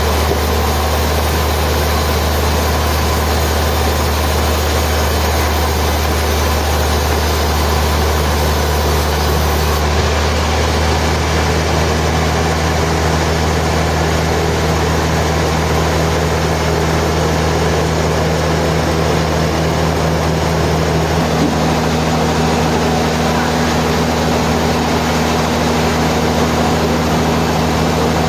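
Heavy sawmill machinery running with a loud, steady low hum. A steady pitched tone joins about ten seconds in and a second, higher one about twenty seconds in.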